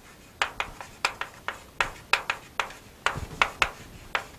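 Chalk writing on a chalkboard: an irregular run of short taps and scratches, several a second, as letters are drawn. A few strokes about three seconds in land with a duller knock.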